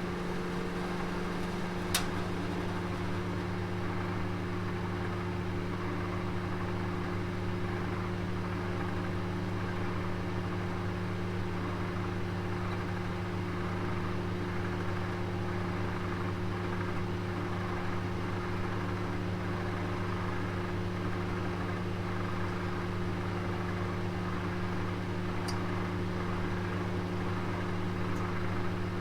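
Oven running with a roast cooking inside: a steady low hum with an even hiss over it, and two brief sharp clicks, one about two seconds in and one near the end.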